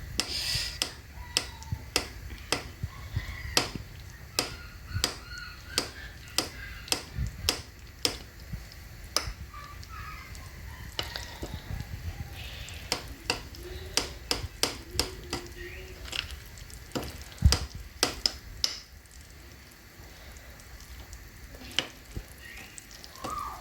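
A utensil stirring a thick semolina batter in a bowl, knocking against the bowl's side about once or twice a second in a steady rhythm. The knocking stops about 19 seconds in.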